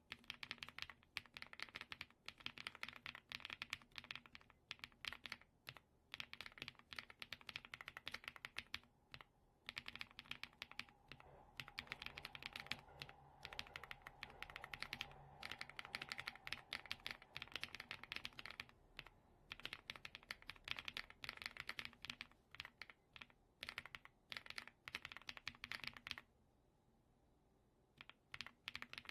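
Typing on a mechanical keyboard fitted with EPOMAKER Creamy Jade pre-lubed linear switches: quick runs of keystrokes in bursts, stopping for about two seconds near the end before starting again.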